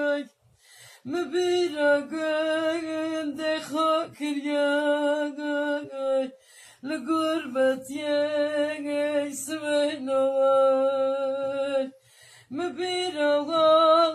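Solo voice singing a Kurdish lament (ağıt) in long, wavering held notes. The phrases break off briefly about half a second in, around six seconds in and near the end.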